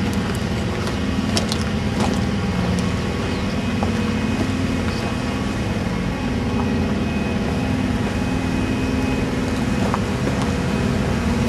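Steady low hum of natural-gas compressor units running inside noise-suppression enclosures. A few faint footsteps sound on gravel.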